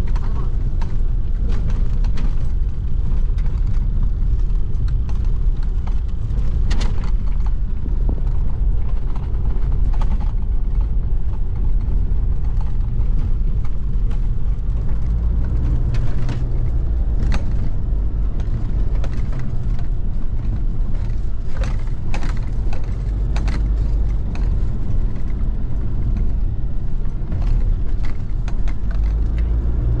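A 4x4 vehicle driving: a steady low rumble of engine and road, with scattered short knocks and rattles throughout.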